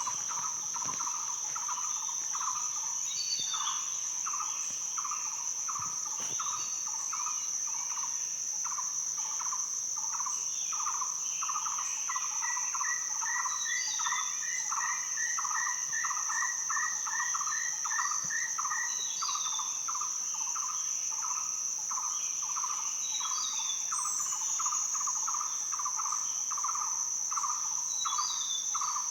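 Birds chirping with scattered short calls over a steady high-pitched insect drone and a pulsing night-insect chorus repeating about one and a half times a second. In the middle, one bird gives a long trill of short repeated notes for about six seconds.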